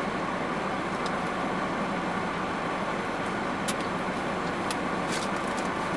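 Steady hum of a car's engine and air conditioning, heard from inside the cabin, with a few faint clicks in the second half.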